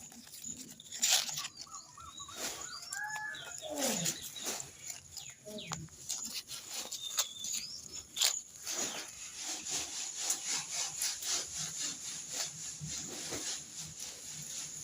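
Dry corn plants rustling and crackling with a dense run of irregular snaps and clicks, as cobs and stalks are worked by hand. A few short sliding calls are heard between about three and six seconds in.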